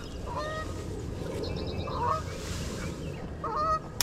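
Geese honking, a few separate calls spaced over the seconds, over a steady low rumble.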